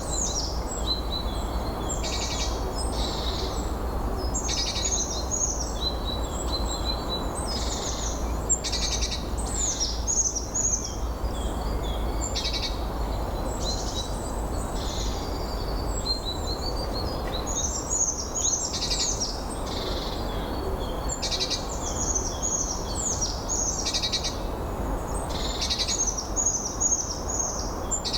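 Songbirds singing in short, high, chirping phrases that repeat every second or two, over a steady rush and low rumble of wind.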